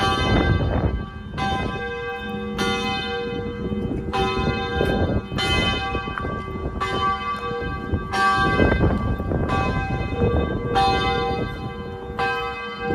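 Church bells ringing, struck over and over roughly every second and a half, each stroke ringing on in several steady tones.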